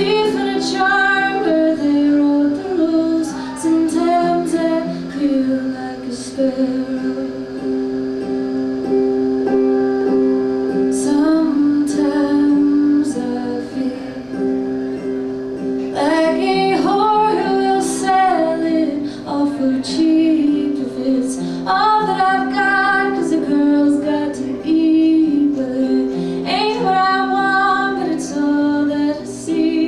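Live acoustic folk song: a woman singing over her own acoustic guitar, with a second guitar played flat on the lap.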